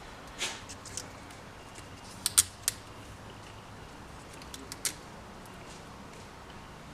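Light clicks and ticks from hands working an adhesive rim-stripe decal onto a motorcycle wheel: a few scattered single clicks and a quick cluster of three about two and a half seconds in, over a faint steady hiss.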